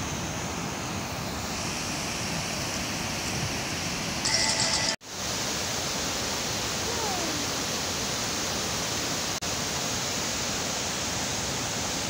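Steady rushing of Nabuyole Falls on the Nzoia River in heavy flow, brown floodwater pouring over rocks and churning through the rapids below. The sound cuts out for an instant about five seconds in, right after a brief louder patch.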